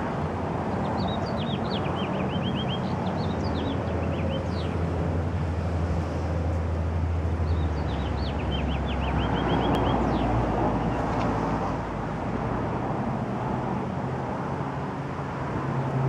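Steady low rumble of road traffic, with a small bird singing over it several times in quick runs of short, down-slurred chirps.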